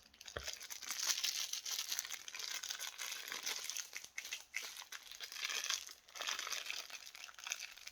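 Plastic crinkling and crackling as it is handled, a steady rustle of fine crackles with a short pause about six seconds in.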